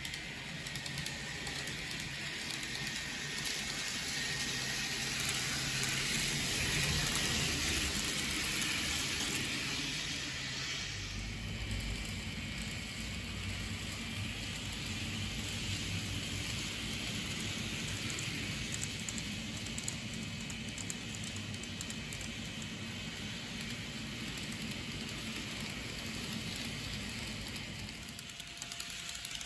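N-gauge model train running on the layout: a steady rolling hiss of wheels on rail with a low motor hum. It grows louder between about four and ten seconds in as the train passes close, then eases.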